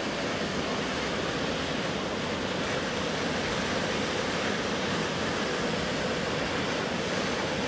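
Sea surf breaking and washing over a rocky shore, a steady rush of noise.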